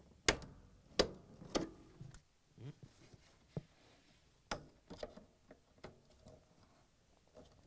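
Sharp clicks and taps of needle-nose pliers and a metal door link hook against a dishwasher's hinge bracket as the hook is worked back onto the hinge. Three louder clicks come in the first two seconds, then fainter scattered taps.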